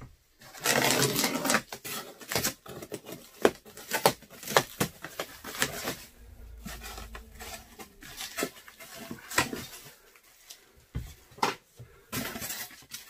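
Plastic wrap crinkling and tearing as scissors cut it off a block of polystyrene packing foam, with a burst of dense crinkling early in and many sharp scratches and clicks after.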